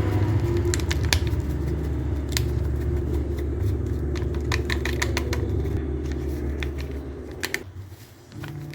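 Electric mixer motor running with a steady hum and scattered clicks of the beaters against the bowl. It cuts out for a moment near the end and starts again.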